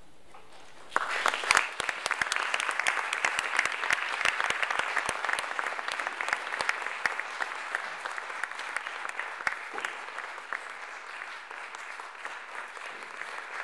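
Audience applauding, breaking out about a second in after a short hush and easing off slightly toward the end.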